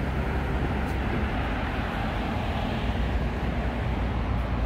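City street traffic noise: a steady low rumble of vehicles on a multi-lane road.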